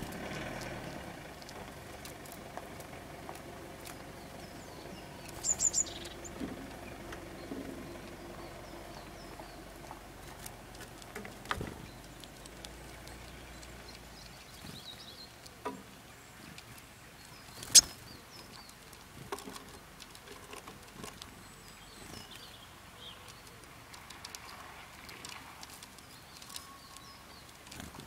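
Blue tits and great tits at a wire-mesh peanut feeder: scattered faint high chirps, a quick run of three or four high notes about five seconds in, and light taps and clicks of beaks on the wire and nuts, with one sharp tap a little past halfway.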